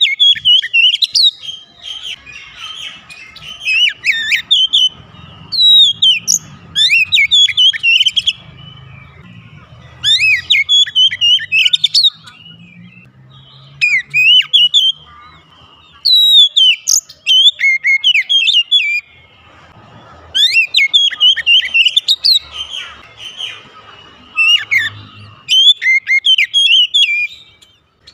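Oriental magpie-robin singing loudly in full song: bursts of quick, varied whistled phrases that rise and fall, each a second or two long, with short pauses between them.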